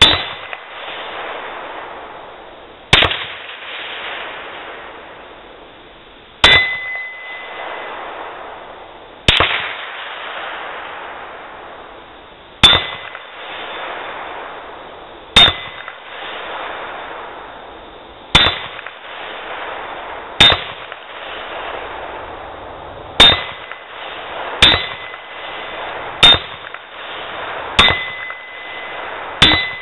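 Rifle shots striking an 8-inch AR500 steel plate target, about thirteen in all, each crack followed by the plate's ringing that fades over a second or two. The shots come about every three seconds at first, then faster, about every one and a half seconds near the end.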